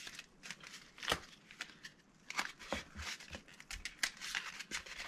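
Cardboard and tape being handled and pressed together by hand: scattered crinkles, rustles and light taps, with a sharper tap about a second in.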